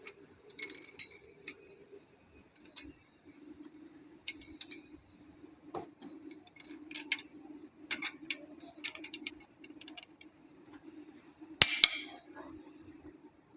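Hand tools clinking and tapping on metal engine parts during a cylinder-head teardown, over a steady low hum, with one loud ringing metal clank near the end.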